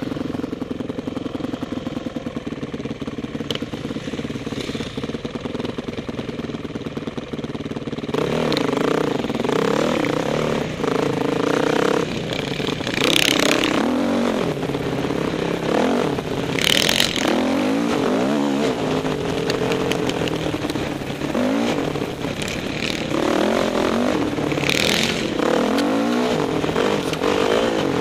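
Dirt bike engine ridden hard: a steady drone for about the first eight seconds, then revving up and down over and over as the throttle is worked, with a few short hissing rushes of noise.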